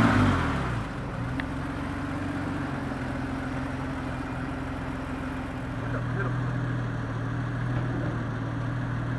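BMW E24 635CSi's straight-six engine idling steadily after start-up, a steady low note with overtones. The revs settle in the first second, and the note grows a little louder from about six seconds in.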